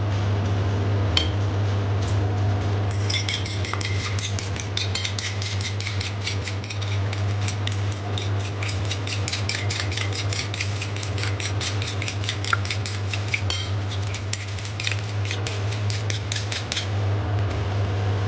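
Two raw eggs being beaten with a utensil in a ceramic bowl: rapid clicking of the utensil against the bowl, several strokes a second, starting about three seconds in and stopping shortly before the end, over a steady low hum.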